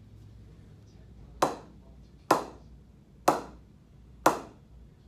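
Cricket ball knocked against the face of an SG Sunny Tonny Icon English willow bat to test its ping: four sharp knocks about a second apart, each with a short ring.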